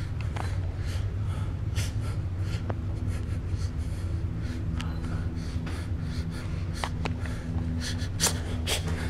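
Close-up breathing and sniffing from someone holding the camera to his face, with scratchy handling rustles and a low steady hum beneath.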